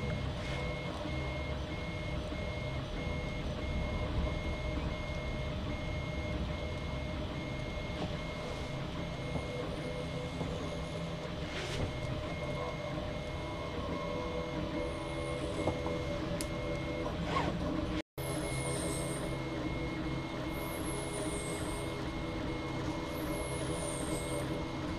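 RepRapPro Mendel colour 3D printer running: its stepper motors and print-head cooling fans give a steady hum, with a high whine pulsing on and off in a quick, regular beat as the head moves. The sound drops out for an instant about three-quarters of the way through.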